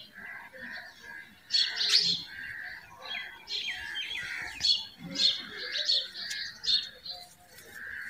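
Birds chirping and twittering: a busy run of short, high calls with quick pitch slides, repeated again and again, louder in places. The calls are too high for the low coo of a pigeon.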